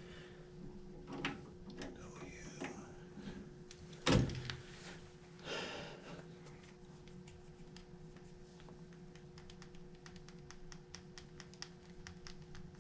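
A steady low electrical hum, with a single loud knock about four seconds in, a brief brushing sound shortly after, and faint irregular ticking through the later part.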